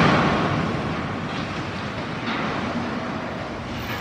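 Rumbling crash noise as a burning construction crane comes down onto a city street. It is loudest at the start and dies away over a couple of seconds into steady traffic noise.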